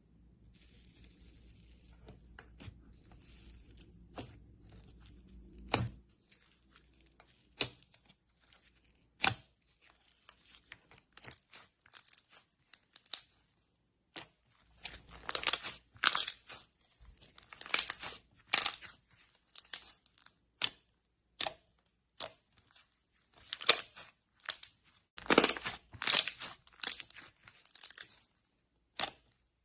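Slime being squeezed, stretched and pressed by hand, giving sticky crackles, pops and sharp clicks. It starts faint over a low hum, and the clicks come closer together and louder about halfway through.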